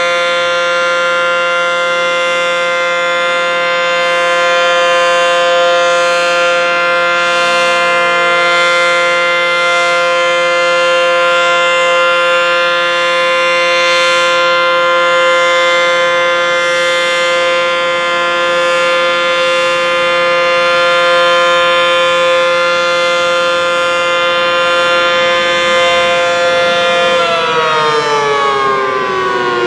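Dual-toned ACA Banshee 115 outdoor warning siren sounding its steady alert, a two-note chord held at a constant pitch. Near the end the whole chord starts falling in pitch as the siren winds down.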